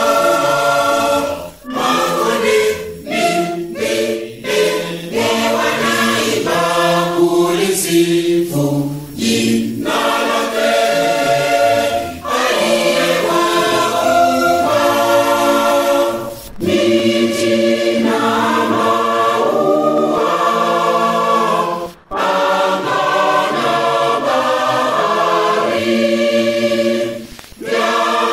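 Church choir of men and women singing a hymn in Swahili in several-part harmony, with short breaks between phrases.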